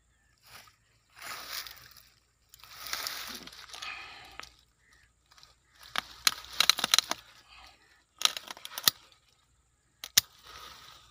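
Hand pruning shears biting through a thick guava stem: clusters of sharp woody cracks and snaps in the second half as the blades crunch through the wood, the last single crack just after ten seconds. Softer rustling comes in the first half.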